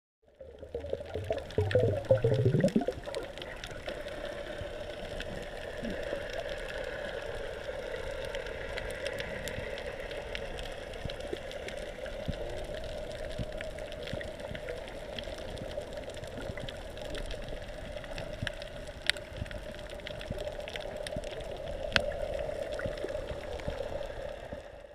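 Underwater water ambience: a steady rushing, gurgling noise, louder with a low rising churn in the first three seconds, with a few sharp clicks later on.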